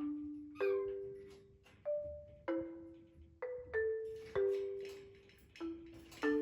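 Background music: a slow, gentle melody of struck, ringing mallet-percussion notes, marimba-like, with a new note or two-note chord about every second, each fading away.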